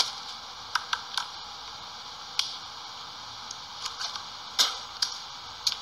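About six sharp plastic clicks and ticks, irregularly spaced, over a steady faint hiss, from a plastic squeeze bottle of ginger paste being handled and its cap worked open.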